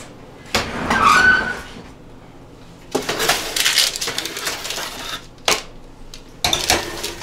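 Metal kitchenware clatter and scraping as a baking sheet is picked up and handled, with a sharp clunk and further metal clatter as the oven door is opened and the tray is put into the oven.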